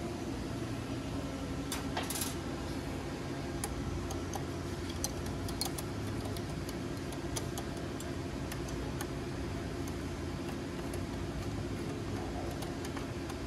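Faint, scattered metallic clicks and taps from a socket wrench snugging the head-stay bolts on the engine, over a steady low shop hum.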